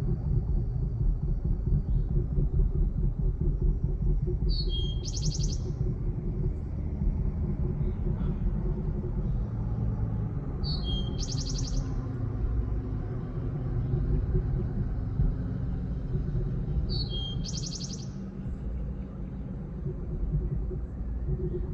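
A small bird calling, a short high note run into a quick buzzy trill, repeated three times about six seconds apart, over a steady low rumble.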